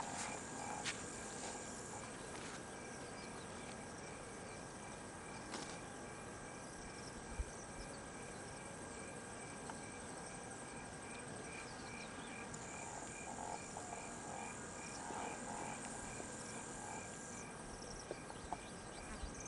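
Faint outdoor insect chorus: a steady high buzz with a regular chirp about twice a second running through it, and a few faint clicks.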